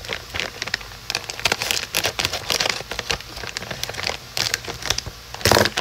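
Plastic bag of broccoli crowns crinkling as it is handled and opened, with scattered crackles throughout and a louder rustle near the end.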